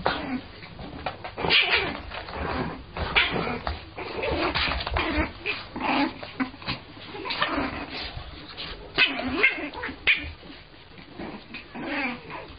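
French bulldog whimpering and yipping in short calls that bend in pitch, about one every second or so.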